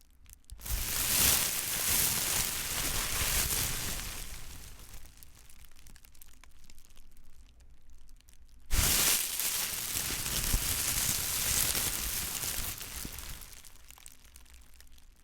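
Plastic bag being crumpled and crinkled in two long bouts: the first starts about half a second in and slowly fades, the second starts suddenly about two-thirds of the way through and fades toward the end.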